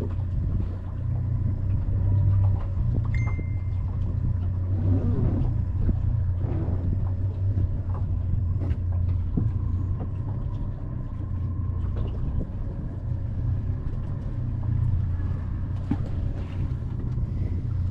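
A small engine running steadily on the boat, a low even drone. Over it come faint scattered rustles and knocks of a cast-net line being hauled in hand over hand.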